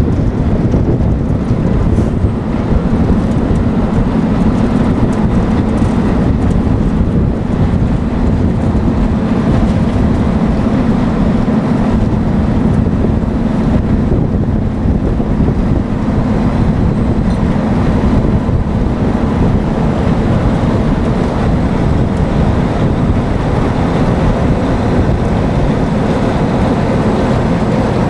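An asphalt milling machine, a 2-metre-wide cold planer powered by an engine of roughly 600–700 horsepower, runs steadily while its drum grinds off the top lift of asphalt. The sound is a loud, even rumble with a steady low hum.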